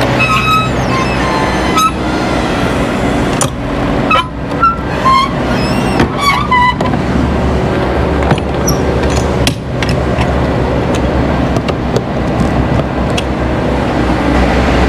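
Truck's hydraulic tail lift being lowered: a steady mechanical hum, with a few short high squeaks about four to seven seconds in.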